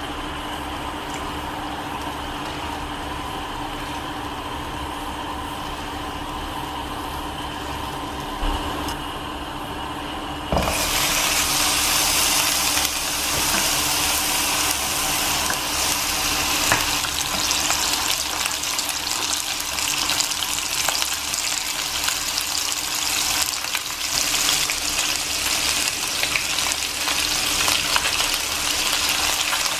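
Liquid bubbling at a rolling boil in a non-stick frying pan, over a steady low hum. About ten seconds in, a much louder sizzle takes over as raw chicken wings fry in the hot pan, and it keeps sizzling to the end.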